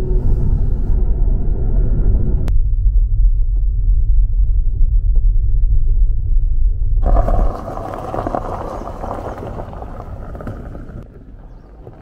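Deep, steady road rumble inside an electric Tesla Model 3's cabin while driving, with the end of background music in the first two seconds or so. About seven seconds in, the rumble gives way to the rougher crunch and hiss of tyres rolling slowly over gravel, which fades away.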